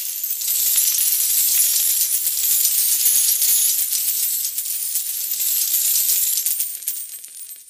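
Shower of many metal coins falling and clinking together in a dense, continuous jingle that fades out near the end.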